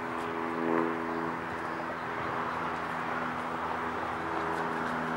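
Two dogs digging and sniffing in dry, rocky soil, their paws scratching and scraping the dirt, over a steady mechanical hum.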